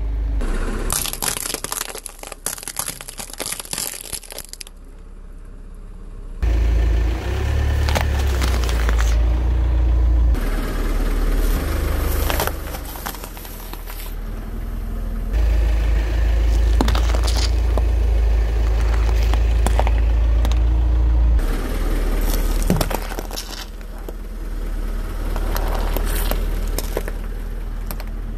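Car tyre rolling over and crushing things on asphalt: walnut shells crackling and crunching under it for the first few seconds, then soft green produce squashing with scattered cracks. From about six seconds in, the car's engine is heard as a steady low rumble underneath.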